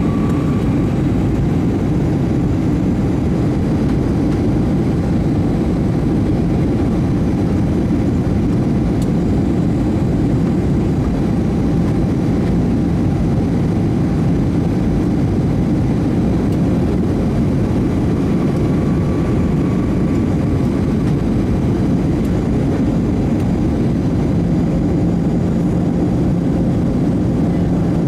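Airbus A319 cabin noise during approach, heard from a window seat over the wing: a steady low rumble of jet engines and airflow. A faint low hum comes in about halfway through, fades, and returns near the end.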